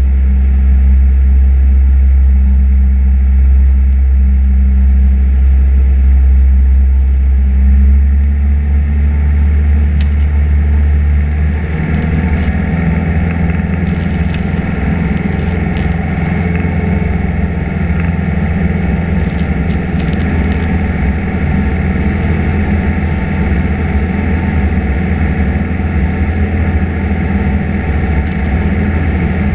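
Single piston engine and propeller of a Piper PA-28 Cherokee droning steadily, heard inside the cabin. About 12 seconds in, the deep drone thins and a brighter, noisier rush takes over.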